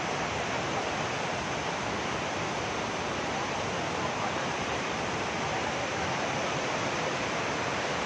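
Steady rush of a stream in flood below a waterfall, water pouring over rocks.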